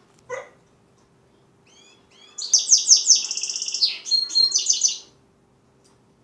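Six-month-old goldfinch mule (goldfinch × canary hybrid) singing: a few rising chirps, then a loud high twittering phrase of about two and a half seconds with fast trills and a held note near its end.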